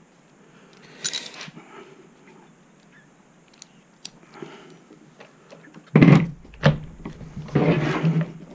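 Metal parts and hardware of a Onewheel Pint being handled as the wheel and axle are fitted between the rails: light clicks and ticks, then a hard knock about six seconds in, another just after, and a short rattling scrape near the end.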